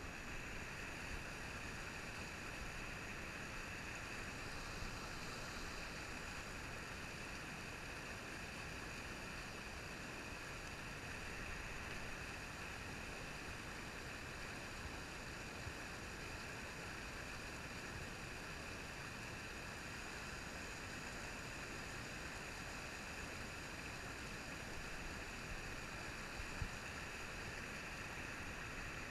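Steady rushing of a stream's small rapids and riffles, an even water noise with no change in level. One brief faint knock near the end.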